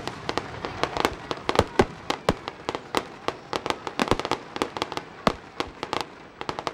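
Fireworks display going off: a rapid, irregular string of sharp bangs and cracks, several a second, over a continuous rumble.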